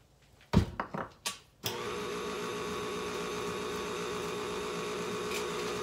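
A loud knock and a few clicks as the KitchenAid stand mixer's tilt head is lowered and set, then about a second and a half in its motor starts and runs at a steady hum, mixing flour into the biscotti dough.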